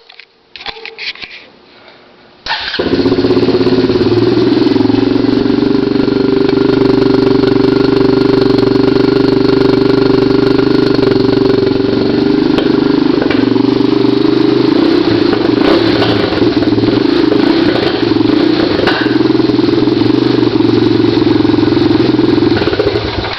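Honda TRX250EX ATV's single-cylinder four-stroke engine, running loud with its spark arrestor removed from the exhaust. It comes in suddenly about two and a half seconds in after a few faint clicks, then runs steadily, with a few brief pops, until it drops away near the end.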